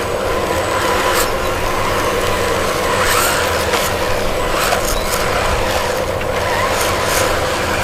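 Small electric motor and gears of a homemade RC vehicle running steadily with a whir, with scattered clicks and scrapes.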